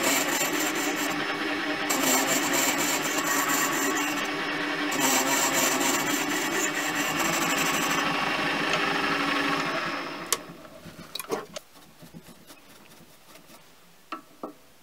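Mini lathe running and machining the compound-slide casting held in its chuck: a steady motor whine under a hissy cutting noise, which dies away after about ten seconds as the lathe stops. Then scattered light clicks, with a quick run of clicks near the end as a micrometer is closed on the part.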